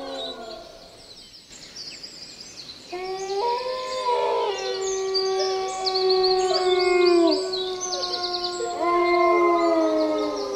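Several dogs howling together in long held notes at different pitches, each note sagging at its end. The first round dies away just after the start, and a new chorus builds from about three seconds in.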